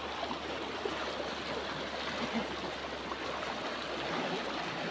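Shallow river flowing over rocks: a steady, even sound of running water.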